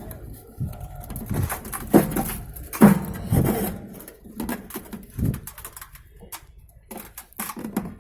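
Irregular knocks, clicks and scrapes of metal parts being handled inside a microwave oven as the magnetron is worked loose, with several louder thuds around the middle.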